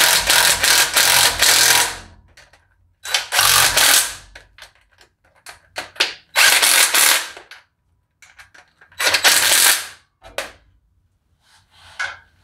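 Cordless impact driver hammering transmission bell-housing bolts in: one burst of about two seconds, then three shorter bursts a few seconds apart.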